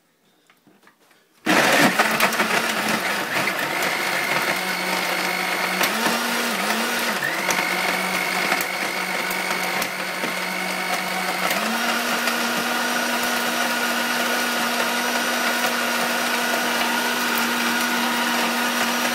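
Countertop blender switching on about a second and a half in and running continuously, churning a thick milkshake of ice cream, milk and cakes in a jug filled past its maximum line. The motor hum dips and wavers a few times, then settles at a slightly higher pitch for the second half.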